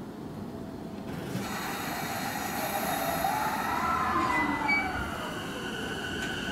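E233-series electric train starting to pull away from the platform: a hiss comes in about a second in, then the whine of its traction inverter and motors glides up and down in pitch and settles into steady high tones as the train gathers speed.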